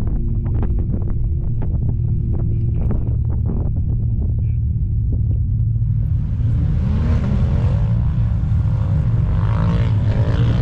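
A steady low rumble of vehicle engines. About six seconds in, a louder, hissier sound with a wavering pitch joins it.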